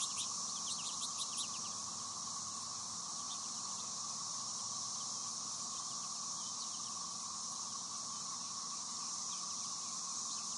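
Steady high-pitched insect drone, with a flurry of short American goldfinch chirps and twitters in the first second and a half and a few scattered chirps later.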